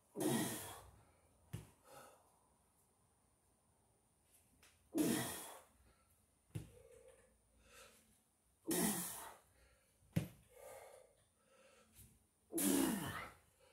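A man's heavy, forceful exhalations with the effort of seated false-grip ring pull-ups: four long breaths out about four seconds apart, with quieter breathing and a few faint clicks between.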